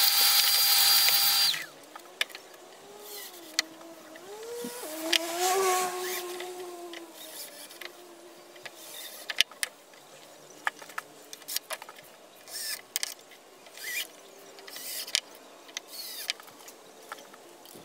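A loud burst of power-tool noise with a steady high whine, cut off after about a second and a half. About four seconds in, a cordless drill/driver runs for a few seconds, its pitch rising and falling with the trigger. Then many short clicks and knocks of clamps and wooden parts being handled.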